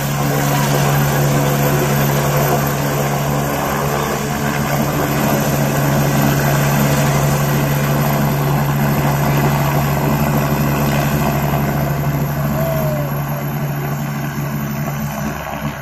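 Agusta A109 Grand twin-turbine helicopter hovering low and settling onto the helipad: steady rotor beat over turbine whine, still running after touchdown and a little quieter near the end.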